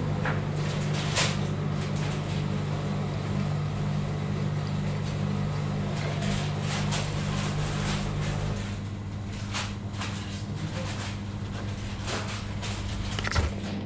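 Steady low hum with scattered light clicks and knocks; one part of the hum drops out about two-thirds of the way in.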